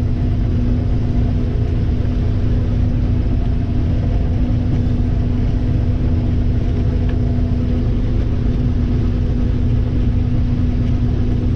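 Combine harvester running steadily while shelling corn: a constant low rumble of engine and threshing machinery with a steady hum over it.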